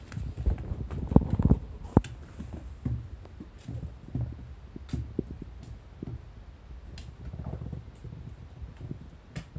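Handling noise and low thumps, loudest about a second in, as a person sits down on a floor cushion. This is followed by soft scuffling and light clicks as a kitten moves about on the cushion.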